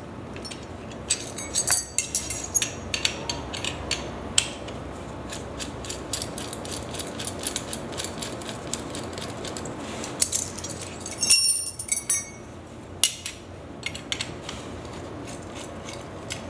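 Screwdriver turning screws out of steel vertical-blind mounting brackets: a steady run of small metallic clicks and scrapes, with a few louder ringing metal clinks a little past the middle.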